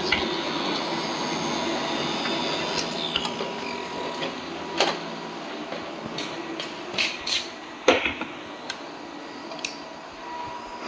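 Robot vacuum cleaner running with a steady motor hum, broken by scattered sharp clicks and knocks, the loudest about eight seconds in.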